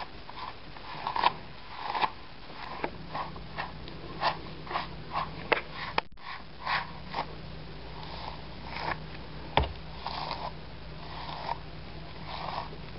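A grooming brush stroked through a standard poodle's curly coat, making short scratchy swishes, one after another at an uneven pace.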